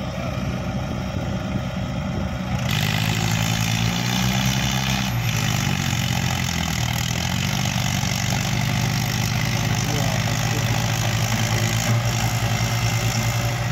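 Diesel engines of a Mahindra Arjun 555 DI tractor and a JCB backhoe loader running hard, revving up about three seconds in and holding there, as the backhoe pulls on a chain to get the fully loaded sand trolley moving.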